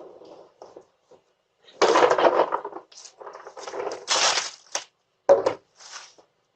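Wrapped Halloween candy rustling and clattering as it is grabbed and dumped into a bag, in several irregular bursts: a long one about two seconds in, the loudest about four seconds in, then a couple of sharp clicks.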